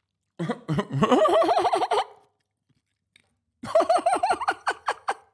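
Twitch stream alert sound effect playing for a channel-point redemption: two bursts, each under two seconds, of a high voice-like sound that wavers quickly up and down in pitch.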